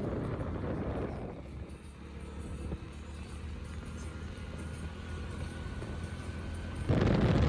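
Moving vehicle on a highway: a steady low road-and-engine rumble. Near the end it jumps to a much louder rushing noise.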